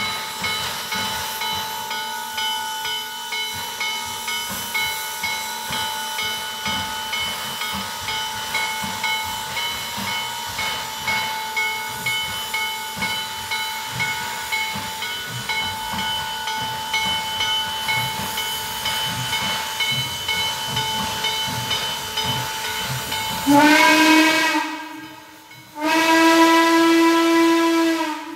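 Chesapeake & Ohio 2-6-6-2 Mallet steam locomotive No. 1309 getting under way, with a regular exhaust chuff over steady steam hiss. Near the end its chime whistle sounds two long blasts, the first starting with a short rise in pitch: the signal that the train is moving forward.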